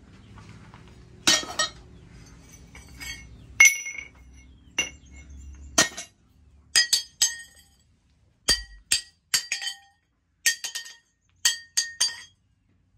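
Pieces of cut plough-disc steel clinking against each other and against a steel post anvil, about fifteen light knocks that each ring briefly. The knocks come in quick pairs and threes in the second half.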